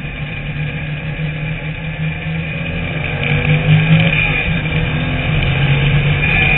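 TVR Tuscan Challenge race car engine running hard under racing load, heard from an onboard camera on the car with wind noise. It gets louder about three seconds in, and its pitch drops slightly near the end.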